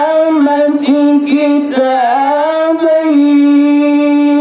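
A young man's voice in melodic Quran recitation, holding long drawn-out notes with ornamented turns and slides in pitch.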